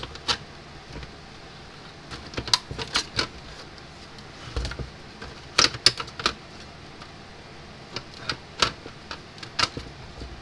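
Irregular light clicks and taps of hands handling an electric fence charger's circuit board and plastic case, with a soft thump about halfway through.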